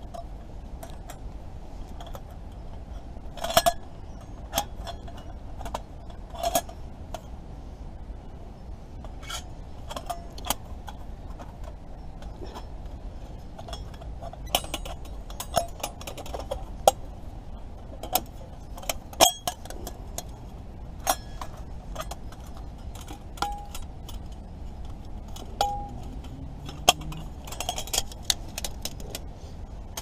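Thin steel plates of a flat-pack folding camping stove clinking and clicking against each other as they are handled and slotted together, an irregular string of metallic clicks.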